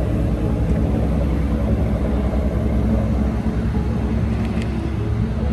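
Steady low engine rumble with a constant hum of engine tones.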